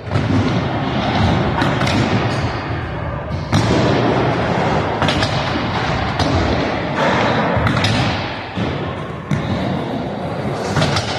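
Skateboard wheels rolling on a wooden ramp, with several sharp thuds and slaps of the board hitting the wood. The sound echoes in a large indoor hall.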